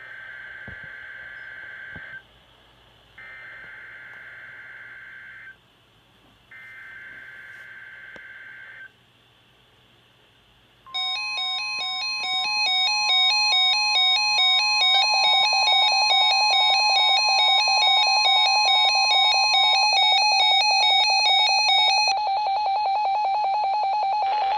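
NOAA Weather Radio SAME header: three bursts of buzzy digital data tones, each about two seconds long with short gaps between, the coded alert signal. The RadioShack 12-259 weather radio's alert alarm then sets in, much louder: rapid electronic beeping over a steady tone.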